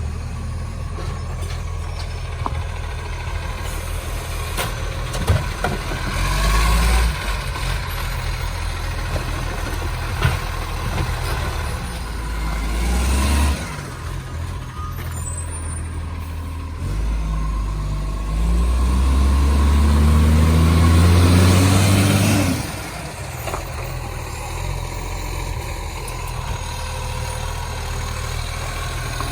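Diesel engine of a garbage recycling truck, the roaring-exhaust-leak truck, idling and revving up several times. The longest and loudest climb comes about two-thirds of the way through and then drops back to idle. Two sharp knocks come in the first third.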